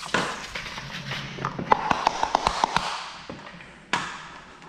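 Hands and a squeegee working wet paint protection film on a car bumper. There is a rustling scrape, then a quick run of about ten sharp ticks in the middle, and a single louder click near the end.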